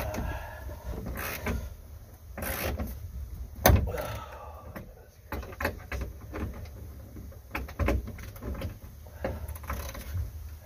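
Irregular metallic clinks, scrapes and knocks of a socket wrench working on the steering helm's mounting bolts behind a boat's dashboard, with one sharp knock a few seconds in.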